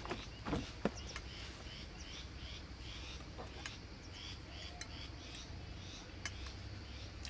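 A bird calling over and over in short, high chirps, about two a second, with a couple of light knocks near the start.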